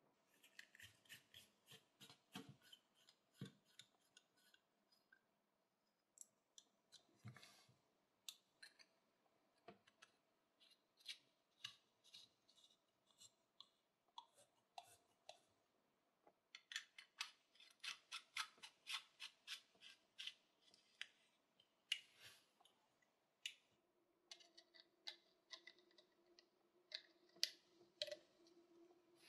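Small brass binocular parts handled and screwed together by hand: quick light metallic clicks and scrapes, coming in clusters with short pauses.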